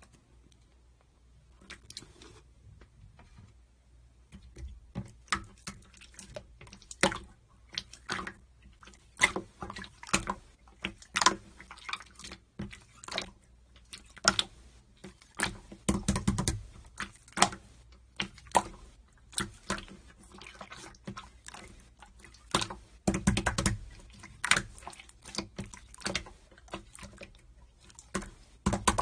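Irregular sharp clicks and taps, a few to several a second, with a couple of heavier thuds just past halfway and about three-quarters of the way through.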